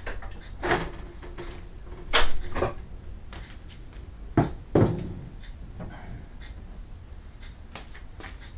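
Clicks and knocks of a computer case's side panel being opened and taken off, with the loudest knocks in pairs about two seconds in and again about four and a half seconds in.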